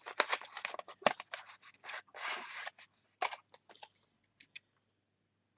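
Packaging being handled by hand as a necklace is unwrapped: irregular light clicks and rustles, with a longer rustle about two seconds in.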